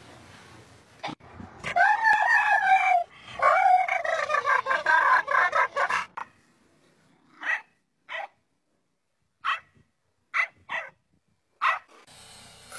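An animal's loud pitched calls, long and wavering, from about two seconds in to about six seconds, followed by six short separate calls.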